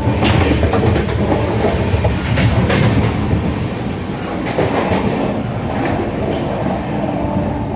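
Inside a moving Indian Railways passenger coach: a loud, steady running rumble of the train with irregular clicks and knocks from the wheels and fittings.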